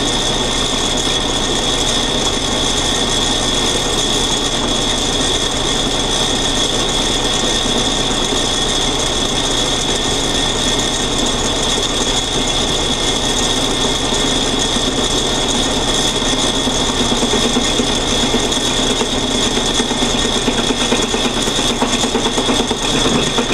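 Lathe running steadily while a tap spinning in its chuck cuts serrations into a bolt pressed against it: a constant high whine over a rasping cut, a little rougher in the last few seconds.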